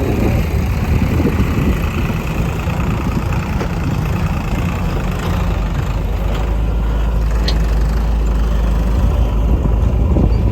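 Heavy diesel engine running steadily, with a deeper, heavier rumble from about six seconds in.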